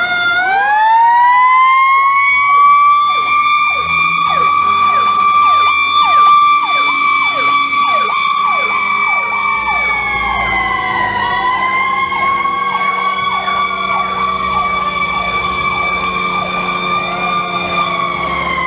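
Fire truck's Federal Q mechanical siren finishing its wind-up into a steady high wail. It sags briefly about eleven seconds in, then winds back up. A second siren's rapid, repeated falling sweeps run over it through much of the wail.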